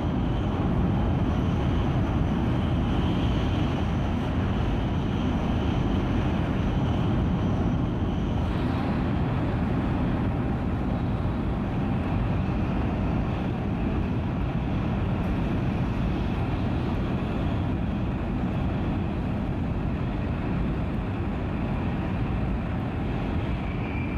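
Steady rumble and rush of an E5 series Shinkansen bullet train running at high speed, heard from inside the passenger cabin. A faint high whine sits over it for the first several seconds, and the sound shifts slightly about eight seconds in.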